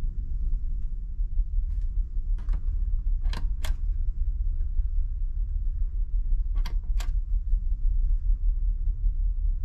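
Steady low drone of a ferry's engines heard inside a passenger cabin, with two pairs of sharp clicks from a wall lamp's push-button switch being pressed and released, the second pair turning the light on.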